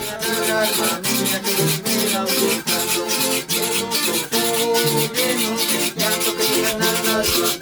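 A small string band playing, with strummed and plucked guitar-type strings over the steady scraping beat of a guacharaca.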